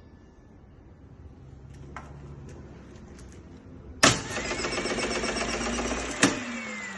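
Hyundai HAT12 air circuit breaker operating under test. A loud sharp clack about four seconds in is followed by its spring-charging motor whirring steadily for about two seconds. A second clack ends the run, and the motor winds down with a falling whine.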